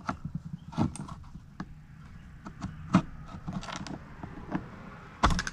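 Irregular clicks, taps and knocks of a small-engine carburetor and its parts being handled and worked at by hand, the carburetor stuck together. A sharper knock comes about three seconds in and a louder one near the end.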